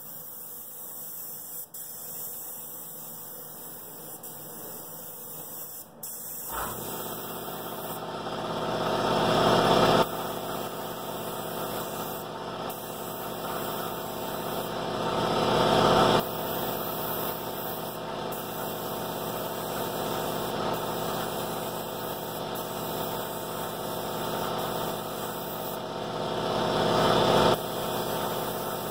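An electric air compressor switches on about six seconds in and then runs steadily with a hum. Over it, a paint spray gun hisses in three long bursts, each swelling louder and cutting off suddenly when the trigger is let go.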